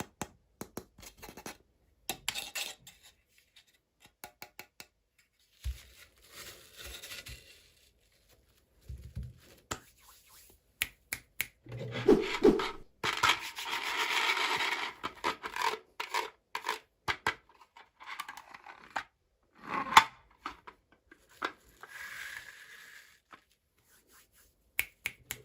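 Toy packaging being handled and opened by hand: scattered clicks and taps with short bouts of rustling and scratching, and a longer stretch of rustling or tearing about halfway through.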